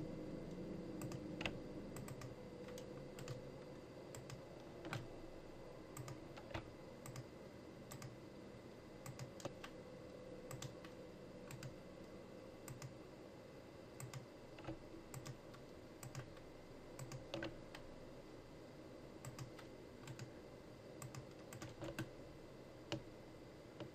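Faint, irregular clicking of a computer keyboard and mouse, about one or two clicks a second.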